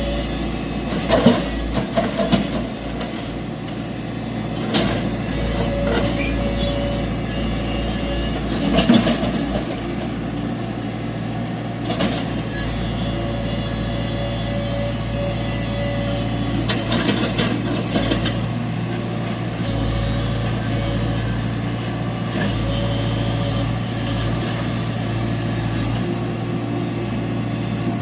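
Tata Hitachi EX70 excavator's diesel engine running steadily while it works, with a few sharp clanks and knocks, the loudest about a second in and near nine seconds.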